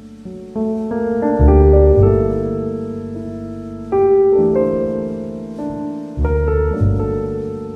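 Background piano music: slow, held keyboard chords, with a deep bass note coming in about a second and a half in and again about six seconds in.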